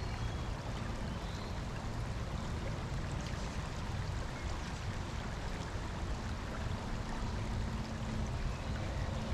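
Steady rush of a creek's riffle: flowing water running evenly over a cold tailwater trout stream.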